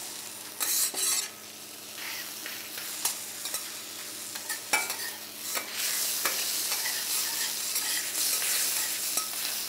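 Chicken thigh pieces sizzling in oil on a hot flat-top griddle, with a spatula scraping and clicking against the griddle plate now and then. The loudest scrapes come about a second in, and the sizzle grows louder from about six seconds in.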